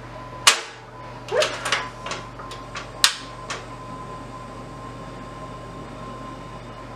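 Portable gas camp stove being lit: two sharp snaps of its push-button igniter about two and a half seconds apart, with smaller clicks and knocks of the knob and pot between them. After that the lit burner gives a faint steady whine.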